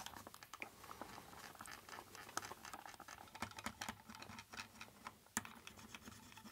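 Faint, irregular scratching and small clicks of a plastic scraper and cotton swab working over the plastic underside of an Amiga tank mouse, scraping off old glide-pad glue residue.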